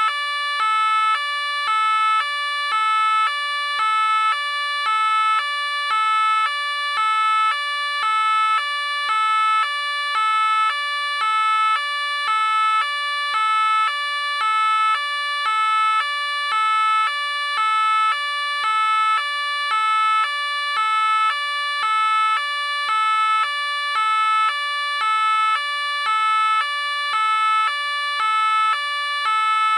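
French police car two-tone siren alternating evenly between a high and a low note, about one high-low cycle a second, steady and unchanging.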